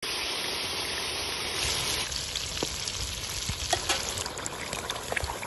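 Chicken pieces sizzling in hot oil in a metal pot, a steady hiss. About two seconds in the sound changes to a bubbling curry with scattered pops and crackles as a thin stream of white liquid is poured in.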